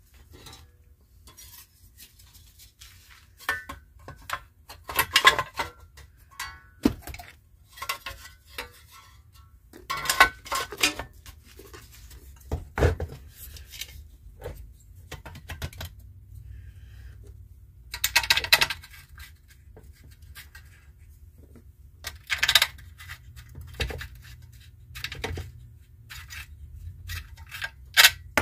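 Bolts and metal engine parts clinking and rattling in irregular bursts as the cylinder head of a small old lawnmower engine is handled and fitted by hand.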